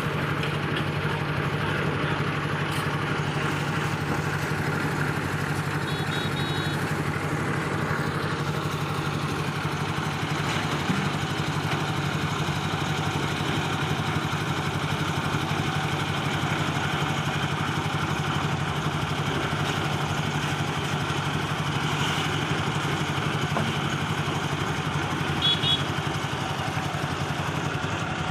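Concrete mixer machine's engine running at a steady speed, an unbroken hum.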